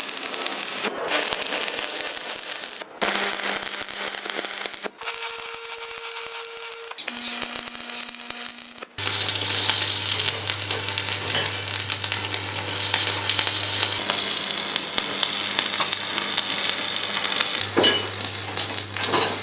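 Metalworking on a steel loader bucket: a steady hiss with crackle, broken by short gaps about every two seconds, then a steady low hum under the hiss from about nine seconds in.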